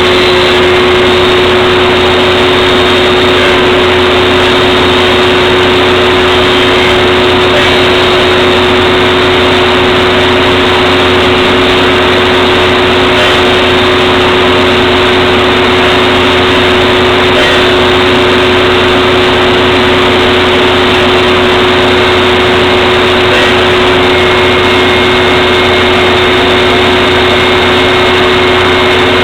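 Table saw running steadily, its motor giving one constant hum over a loud, even noise, with no change in pitch.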